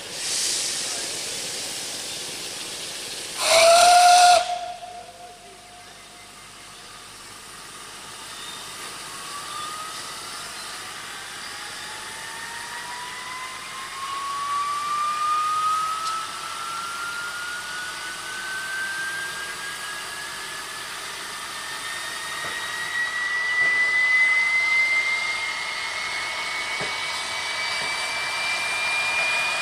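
Saddle-tank steam locomotive giving one short blast on its steam whistle a few seconds in, the loudest sound, amid steady hissing of steam as it starts away with its carriages. A faint tone rises slowly in pitch through the second half.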